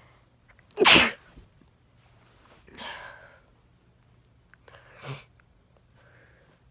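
A person sneezing from allergies: one loud, sudden sneeze about a second in, followed by two softer breathy bursts around three and five seconds in.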